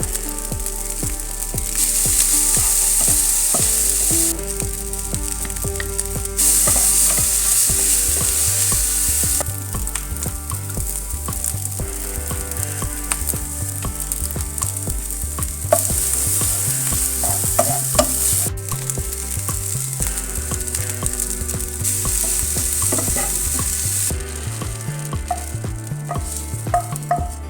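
Food sizzling as it fries in a pan, with stirring. The sizzle gets louder and softer in stretches of a few seconds.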